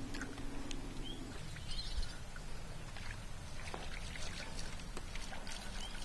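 Quiet outdoor ambience on the water: scattered small clicks and taps, a steady low hum for about the first second, and a couple of faint short chirps.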